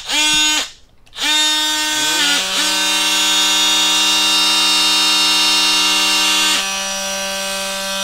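Cordless oscillating multi-tools running with no load: a couple of short bursts at the start, then a motor whine that rises in pitch as it spins up about two seconds in and runs steadily. Near the end part of the sound drops away, leaving the Festool OSC 18 running on its own.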